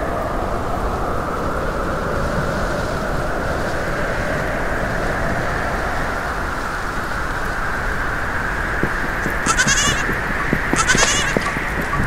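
A steady rushing noise, with a farm animal bleating briefly twice near the end.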